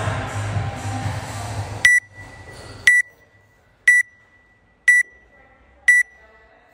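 Gym music cuts off abruptly about two seconds in, then an electronic interval timer beeps once a second, five short high beeps counting down.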